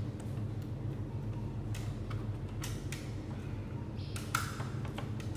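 A few scattered small clicks and taps of plastic and metal parts being handled inside an opened Canon iR copier, the loudest a little over four seconds in, over a steady low hum.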